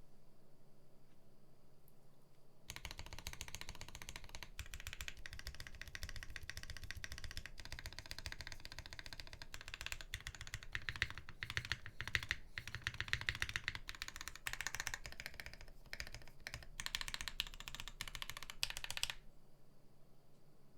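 Fast, continuous typing on a custom mechanical keyboard: a Jane 1.5 with lubed and filmed Gateron Giant V3 switches in a POM half plate, with CRP Tulip keycaps. The typing starts after a few seconds of quiet and stops shortly before the end.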